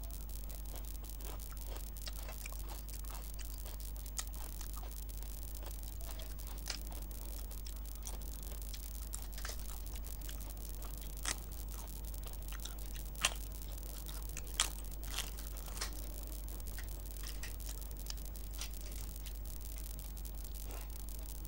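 Close-up eating sounds: mouth noises of chewing rice and chicken curry eaten by hand, with sharp crunches of crisp papad, the loudest a little past the middle. A steady low hum runs underneath.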